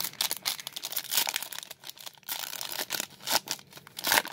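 Foil wrapper of a WWE trading-card pack being torn open and crinkled as the cards are pulled out: a dense run of crackling, with a louder crackle near the end.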